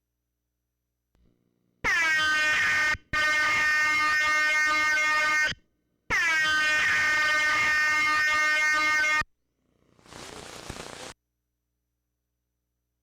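Three loud, steady, buzzy horn-like blasts received over a CB radio, the first short and the next two longer, followed about a second later by a short burst of radio static.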